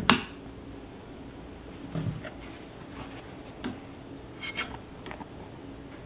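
Light clicks, taps and rubbing of thin balsa wood strips being handled and set onto a paper plan, a handful of separate small knocks, with a sharper click right at the start.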